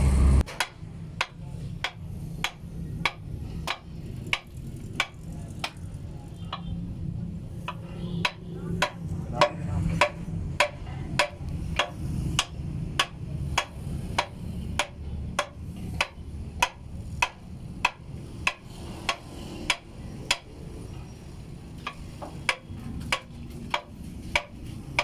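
Light taps of a tool on the crane's steel wheel hub, in a steady rhythm of about two a second, over a low steady hum.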